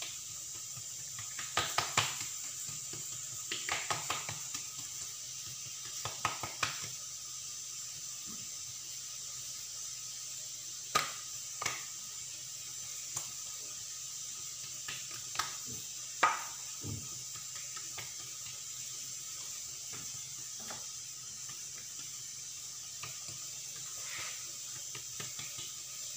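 Hands spreading and stretching oiled dough thin on a granite countertop: scattered soft slaps and taps, a few sharper ones, over a steady hiss.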